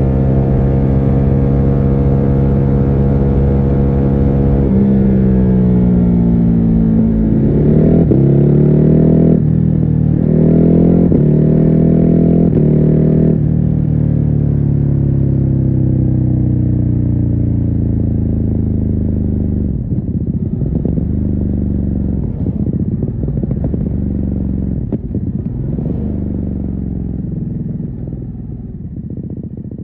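Ducati Hypermotard 950's L-twin engine with its stock exhaust, heard muffled from inside the rider's backpack. It runs steadily at first, then accelerates with rising revs through several quick upshifts. It then rolls off, the revs falling away, and runs lumpily at low revs before fading out.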